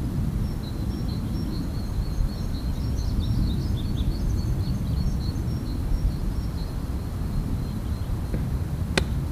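Small birds chirping over a steady low outdoor rumble, with a single sharp click near the end.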